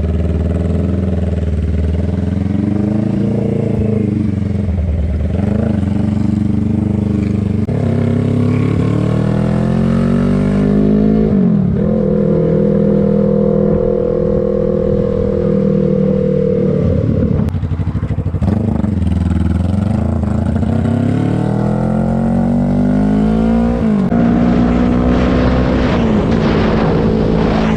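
Suzuki GSX250R motorcycle's parallel-twin engine under way. Its pitch climbs and drops sharply at the gear changes, and it holds steady for several seconds in the middle.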